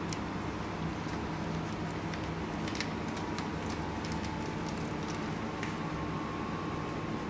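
Steady low hum of kitchen equipment, with faint scattered clicks and rustles of a plastic piping bag being handled.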